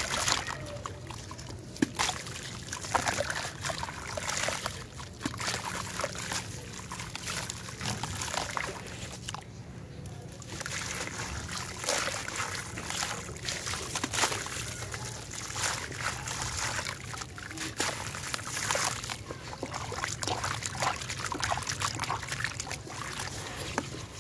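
Wet sand-cement chunks crumbled by hand in a tub of water: irregular gritty crunching and crackling, with splashing and grit trickling and pouring into the water.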